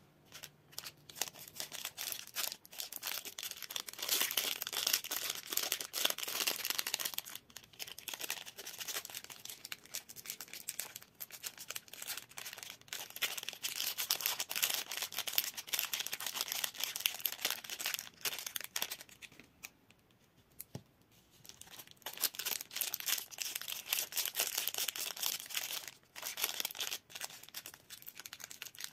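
Plastic wrapper of a Nut&Go nut bar crinkling and tearing as it is handled and opened by hand, a dense run of small crackles. It drops away briefly about a quarter of the way in and goes nearly quiet for a second or two about two-thirds of the way through.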